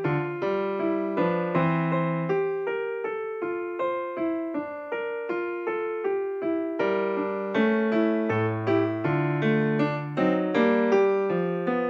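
Background piano music: a melody of evenly paced notes, several a second, each struck and fading.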